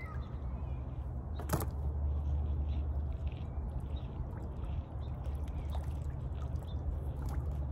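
Water dripping and trickling as a wet magnet-fishing rope is hauled up out of a lake, over a steady low wind rumble on the microphone. One sharp knock about a second and a half in.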